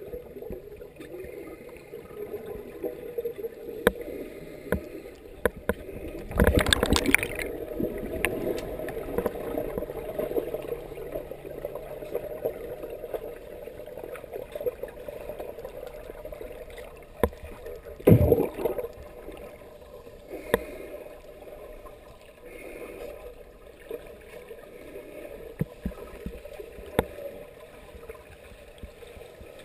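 Underwater sound of scuba divers in a pool, heard through a waterproof camera housing: a muffled steady hum with scattered clicks and the gurgle of regulator exhaust bubbles. A louder rush of bubbles lasts about a second, six or seven seconds in, and a short low thump comes at about eighteen seconds.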